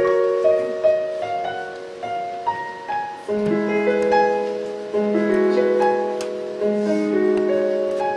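Piano playing a slow passage of sustained chords under a simple melody, with low bass notes coming in about three seconds in.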